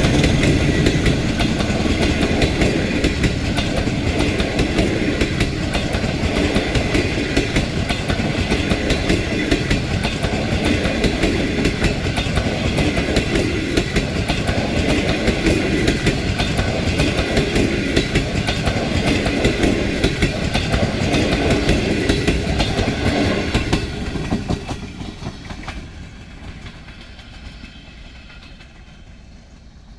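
Passenger train coaches rolling past close by, wheels clicking over the rail joints in a steady clatter. About 25 seconds in the last coach goes by and the sound drops away as the train pulls off into the distance.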